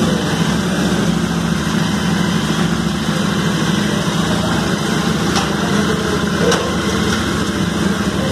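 Royal Enfield Interceptor 650's 648 cc parallel-twin engine idling steadily at an even pitch through its stock twin exhausts, just after being started.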